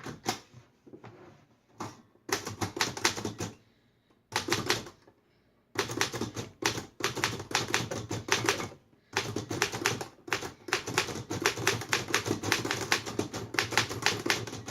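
1935 Royal KMM manual typewriter being typed on: runs of rapid key strikes broken by short pauses, with the longest run taking up the second half.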